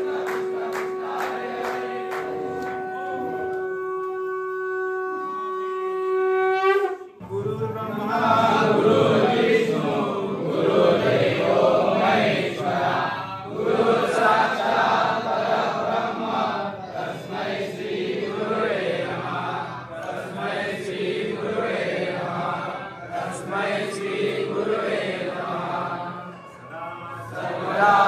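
A conch shell (shankh) blown in one long steady note for about seven seconds, growing brighter before it cuts off, with quick rhythmic ticking during its first few seconds. Then a crowd of worshippers chanting together.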